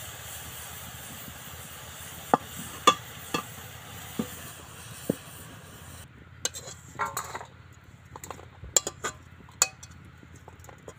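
Metal spatula clinking and scraping in a wok as the cooked pea-and-carrot filling is scooped out and tipped into a steel bowl. For the first six seconds a steady sizzling hiss runs under a few sharp clicks; after it stops, a quicker run of scrapes and clinks follows.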